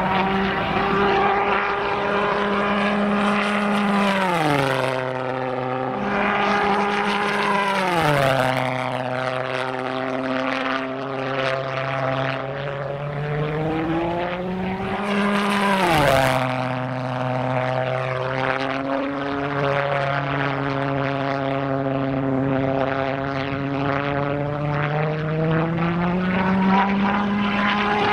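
Pulse jet engine of a radio-controlled delta-wing model jet running flat out in flight, with no throttle: a loud, steady, deep drone. Its pitch drops sharply three times, about four, eight and sixteen seconds in, as the model passes, and climbs slowly back as it comes round again.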